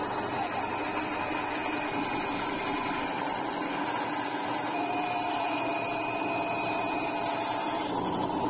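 Benchtop band saw running and cutting a curve through a block of sweet chestnut wood: a steady motor hum with the hiss of the blade in the wood.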